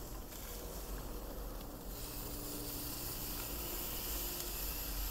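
Steaks sizzling on the grates of a hot gas grill, a steady hiss.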